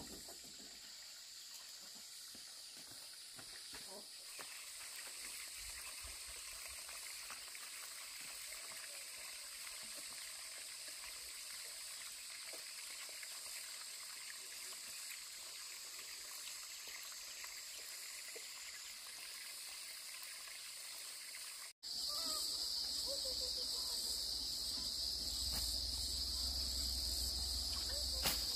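Steady high-pitched chorus of insects droning at a constant pitch. About three quarters of the way through it breaks off sharply and comes back louder, with a low rumble underneath.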